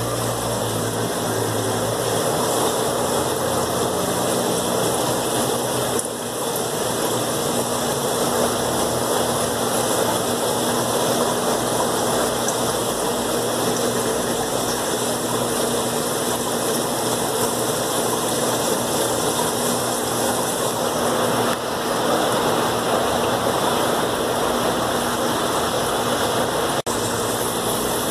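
Steady hum and watery rush of aquarium air pumps and bubbling air-lift filters, with a couple of brief dips and a single click near the end.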